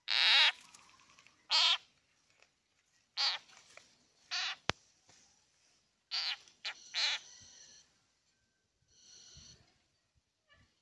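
A frog caught by a snake giving distress screams: a series of short, loud cries about one every second or so, the first the longest, with a fainter cry near the end.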